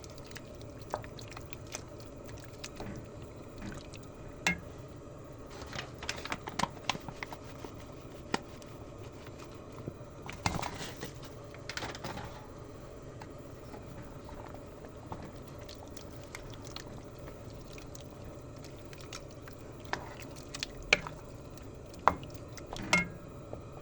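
Pot of curry cooking: thick liquid bubbling and sloshing, with scattered light knocks and clicks against the pot, several in small clusters.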